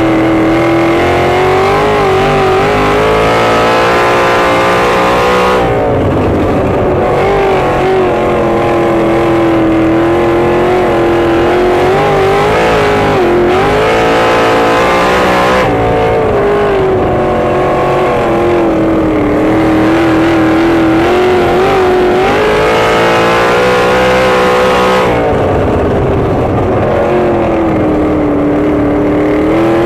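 Sprint car's V8 engine revving hard, heard from the cockpit: its pitch climbs along each straight and drops off into each turn, several times over, as the car laps the track.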